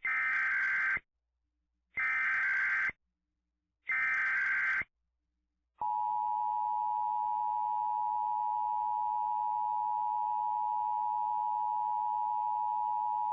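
Emergency Alert System SAME header: three short bursts of buzzing digital data tones about two seconds apart. About six seconds in, the EAS two-tone attention signal follows as a steady dual-pitch tone, marking the start of an emergency alert broadcast.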